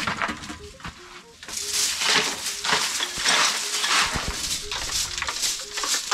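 A traditional bundled-grass broom sweeping a bare earth floor strewn with debris. A few soft strokes come first, then a quick run of repeated swishing strokes from about a second and a half in.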